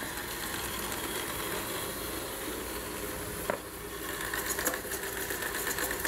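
ILIFE A4 robot vacuum running steadily, its motor and brushes whirring as it drives back and forth against the edge of a cabinet. A single sharp knock comes a little past halfway.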